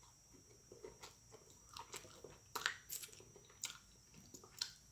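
Close-miked chewing of crunchy battered fried chicken wings: a run of short, crisp crunches, the sharpest a little past halfway.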